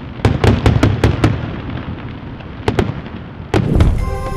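Fireworks going off: a quick run of about six sharp bangs in the first second and a half, a pair of cracks about midway, and the loudest, heaviest bangs near the end.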